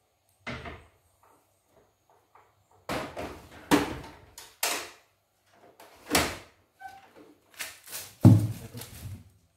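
Handling noises: a series of knocks, thuds and scrapes as a cardboard shipping box and its packing are moved and rummaged through, with the heaviest thud about eight seconds in.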